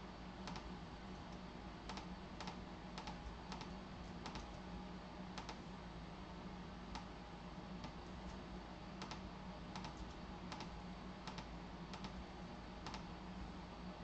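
Irregular clicks of a computer keyboard being typed on, a key or a few at a time, over a steady low hum.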